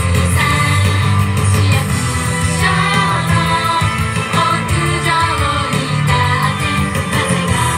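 Female vocal group singing an up-tempo pop song into microphones, with backing music, through outdoor PA speakers.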